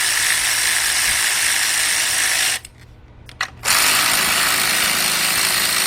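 Power ratchet with a 13mm deep socket spinning bolts out, running steadily. It stops about two and a half seconds in, gives a few clicks, and starts again about a second later.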